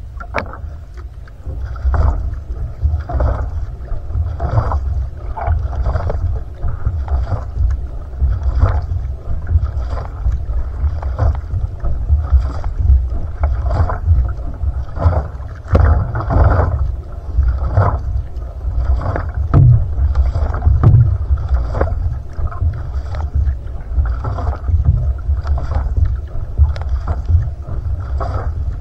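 Outrigger canoe paddling: the single-blade paddle splashes into the water about once every second and a quarter, over a steady low rumble of water moving along the hull.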